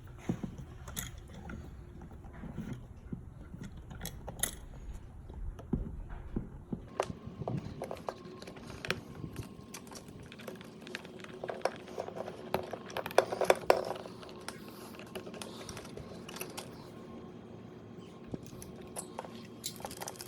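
Hands working small hardware at a wall switch box: irregular clicks, taps and light rattles of tools, screws and the switch, with a busier run of clicks a little past halfway, over a faint steady hum.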